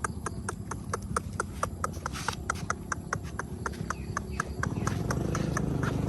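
A rapid, even series of tongue clicks, about four or five a second, used to call a dog. A motor engine comes up underneath near the end.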